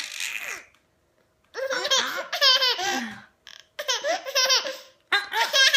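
A toddler laughing in high-pitched peals of quick ha-ha-ha pulses. A laugh trails off at the start, then after a pause of about a second come three more bouts, the last still going at the end.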